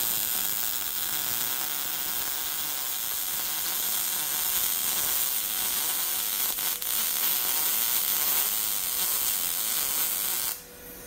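MIG welder arc burning steadily while tacking brackets onto a 1x2 tube. It breaks off briefly about two-thirds of the way through, then runs on and stops shortly before the end.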